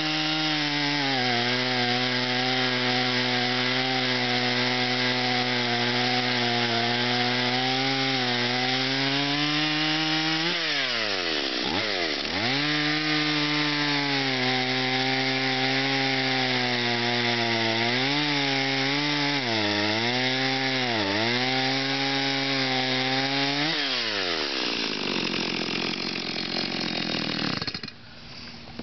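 Stihl MS170 two-stroke chainsaw running at high revs. About ten seconds in, the pitch drops sharply and climbs back, and it wavers a few more times later. Near the end the revs fall away and the engine stops.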